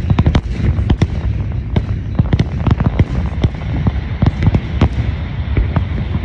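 Aerial fireworks display: shells bursting in quick, irregular succession, several sharp bangs a second over a steady low rumble.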